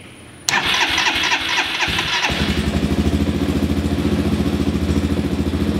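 Electric starter cranking a fuel-injected small engine with MTD Delphi engine control for about two seconds, then the engine catches and settles into a steady idle.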